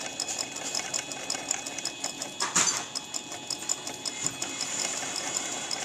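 Belt-driven diamond-burr tool post grinder, run by a Black & Decker RTX rotary tool, lightly grinding the inside of a mini lathe's turning chuck jaws: a steady high whine with an even, rapid ticking. A brief louder rasp comes about two and a half seconds in.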